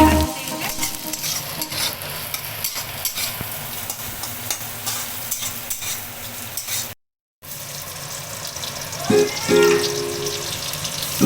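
Food sizzling as it fries in a hot pan, stirred with a utensil that clicks and scrapes against the pan. The sound cuts out completely for about half a second partway through.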